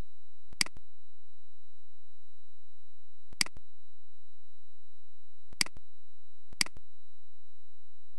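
Four computer mouse clicks, the last two about a second apart, over a steady high-pitched tone.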